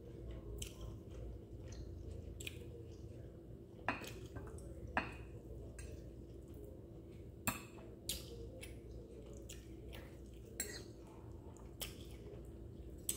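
Metal fork clinking and scraping on a ceramic plate now and then as a whole fried porgy is picked apart by hand to take out its bones: about eight short sharp clicks, spread out, over a faint steady hum.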